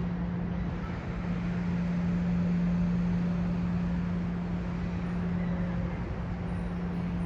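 City traffic ambience: a steady low hum over an even wash of traffic noise.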